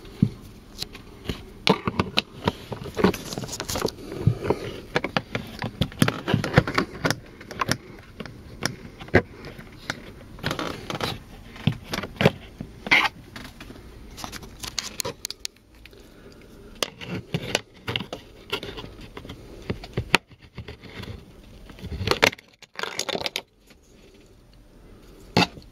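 Plastic dashboard end cover of a Mercedes-Benz W202 being pried loose and handled: irregular clicks, snaps and scraping of plastic trim, with quieter pauses now and then.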